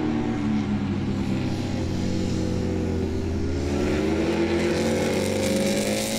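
A MotoGP race bike's engine running at high revs on track. The note eases slightly over the first half, then climbs steadily as the bike accelerates.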